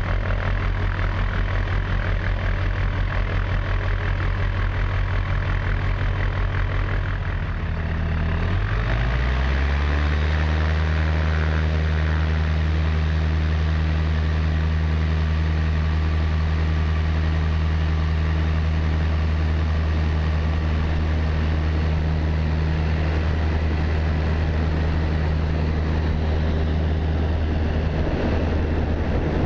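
Tecnam P92 ultralight's engine running steadily; about eight seconds in its pitch rises, then it settles into a slightly higher steady drone.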